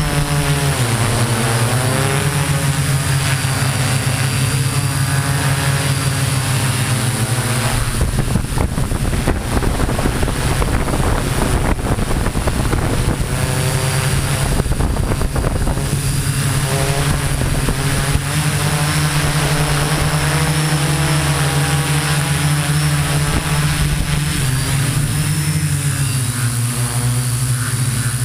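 Multirotor drone's electric motors and propellers buzzing steadily, the pitch wavering up and down as it manoeuvres. A rushing noise joins in about eight seconds in and lasts several seconds.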